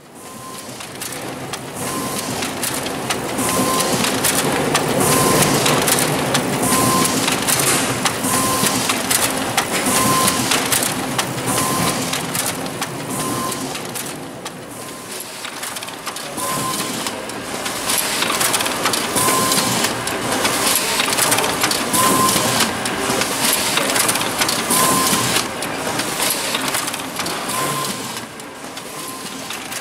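High-speed laser printer running with a high-capacity side paper feeder, sheets being drawn in and printed in a continuous rush of paper and mechanism noise. A short high tone repeats about every second and a half.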